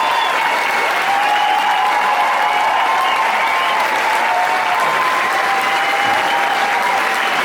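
A large concert audience applauding steadily at the end of the show.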